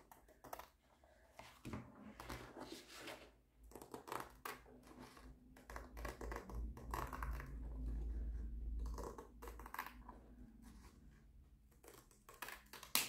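Scissors cutting through the white border of a diamond painting canvas: a series of irregular snips, with a low handling rumble midway.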